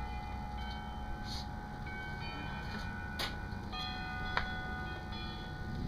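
Metal wind chimes ringing, with notes of different pitches struck now and then and left to ring on, and a couple of faint clicks.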